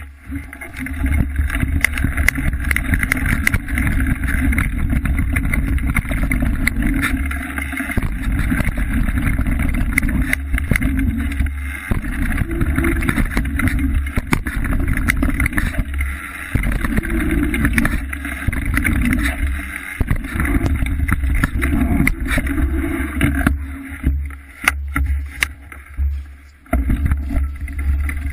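Mountain bike ridden fast along a dirt jump trail, heard through a rider-mounted action camera: steady wind rumble on the microphone with tyre noise and frequent rattles and knocks from the bike. The noise eases off in a few short dips near the end.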